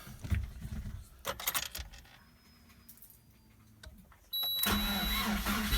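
Keys rattling and a few clicks, then about four seconds in a sudden steady whine with a low hum sets in as the freshly rebuilt Lada Priora engine (VAZ 2108 block and crankshaft, Priora pistons and bearings) is cranked for its first start.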